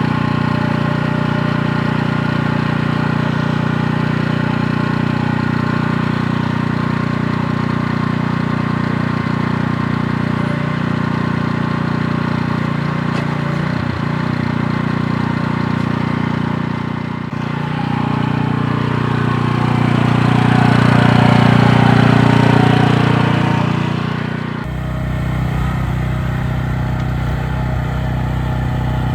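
Mini excavator's small 9.5-horsepower engine running steadily. It swells louder for several seconds near the middle as it takes load, then its sound changes abruptly to a different steady running tone about 25 seconds in.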